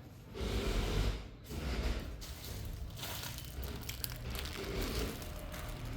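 Crinkling and rustling of a packet being handled, loudest in the first second and a half.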